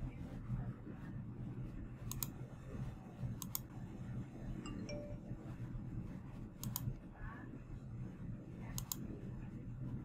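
Four short, sharp computer mouse clicks, each a quick press and release, spread a second or more apart over a low steady room hum.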